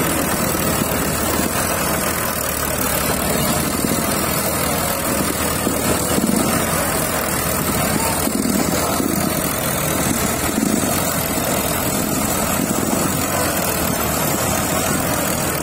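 Diesel tractor engines running steadily, with a dense, even wash of engine noise.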